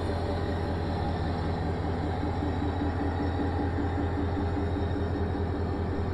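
Diesel locomotive engines running with a steady low drone as the train rolls slowly past.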